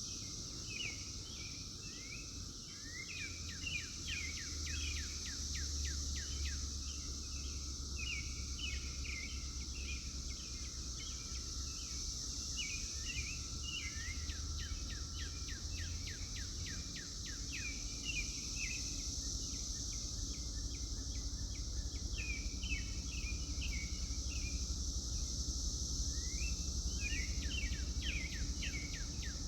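Cicadas droning steadily at one high pitch, with birds chirping many short calls over them. A low rumble runs underneath through the first half.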